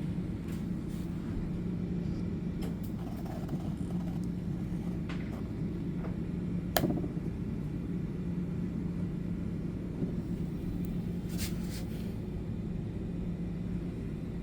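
Steady low hum of room background noise, with a few faint light taps and clicks scattered through it and one sharper click about seven seconds in.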